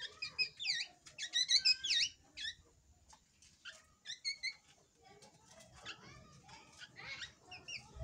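Young caged drongo (srigunting) singing: short whistled notes with quick up-and-down glides, in bursts over the first two and a half seconds, again about four seconds in, and briefly near the end.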